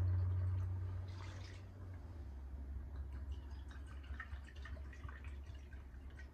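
Red wine being poured into a casserole of chicken and stock, splashing and dripping, the pour tapering off over the first couple of seconds into scattered drips. A steady low hum runs underneath.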